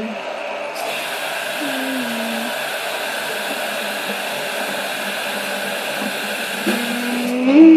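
Electric toothbrush buzzing steadily as it brushes teeth, with a steady hiss over most of it that cuts off near the end. A child hums a short falling note about two seconds in and starts another just before the end.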